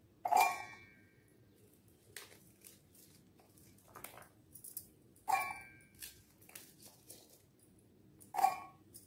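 Handfuls of raw yam cubes dropped into an empty stainless steel mixer jar: three loud clanks, each ringing briefly, with lighter taps and clicks of cubes and hands between them.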